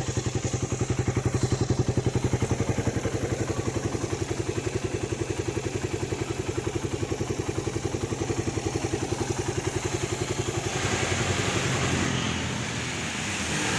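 Stock Suzuki Satria FU's 150 cc single-cylinder four-stroke engine idling with an even, rapid pulse. About eleven seconds in the sound smooths out and gets a little louder.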